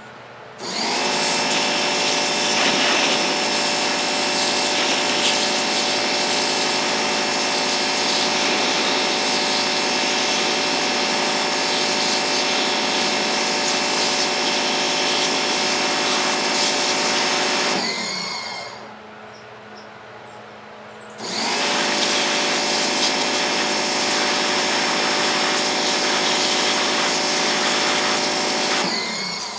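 4,200 PSI pressure washer running under load, its jet spraying into a pumpkin with a loud, steady hiss and motor hum. The sound drops away for about three seconds past the middle, then starts again.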